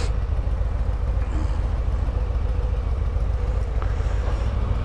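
Harley-Davidson Road Glide's V-twin engine running with a steady low rumble.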